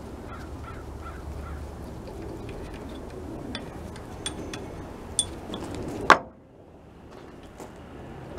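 Scattered light metallic clinks and taps of metal parts being handled on a bare engine block, ending in one sharp, louder knock about six seconds in.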